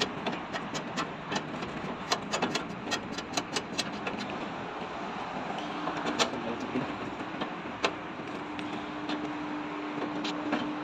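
Sharp metal clicks and taps as locking pliers work at the end housing of an HVAC condenser fan motor, during removal of its seized bearing. The clicks come quickly for the first few seconds, then singly, over a steady hum that gains a low tone about halfway through.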